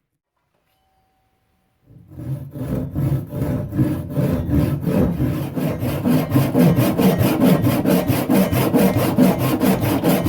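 Hand saw cutting through a plum-wood pen blank in quick back-and-forth strokes. The strokes start about two seconds in and settle into a steady rhythm of about four a second.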